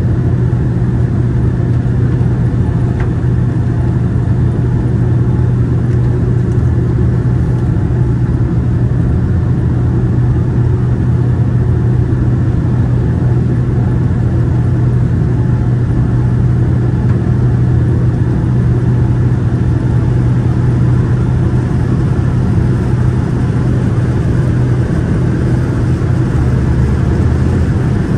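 Steady engine and airflow drone inside the cabin of a Boeing 787-9 airliner, with a strong low hum.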